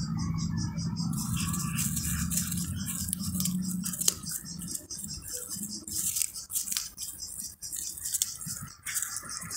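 Clear plastic sheet crinkling and rustling while a cat chews and tears at fish laid on it, with irregular small clicks. Crickets chirp in a steady pulsing rhythm behind, and a low hum stops about four seconds in.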